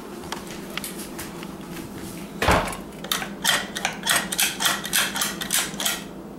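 A Cookie Pro Ultra II cookie press is set down on a metal baking sheet with a knock about two and a half seconds in. Then its mechanism is worked in a quick run of sharp clicks, about four a second, pressing dough out through the disc.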